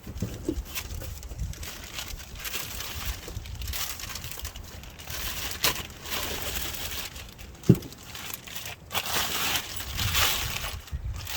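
Rustling and crinkling of parts being handled during the axle job, with scattered clicks and one sharp knock about two-thirds of the way through.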